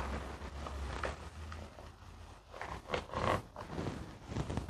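Thick cornmeal cake batter poured from a plastic bowl into an aluminium baking pan, with soft, irregular scraping as a spatula works the last of the batter out of the bowl, a few stronger scrapes about three seconds in.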